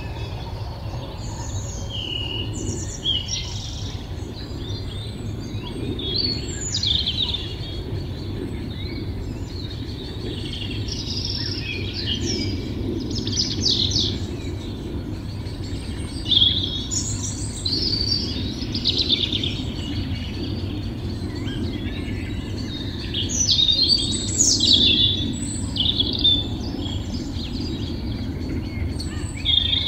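Songbirds calling and singing in many short chirps and phrases, some overlapping, over a steady low background rumble.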